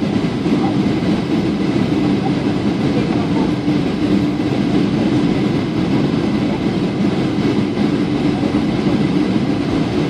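Steady in-flight cabin noise of a Boeing 737-800 at low altitude: its CFM56 jet engine and the rush of air past the fuselage, a constant loud rushing with a low steady hum underneath.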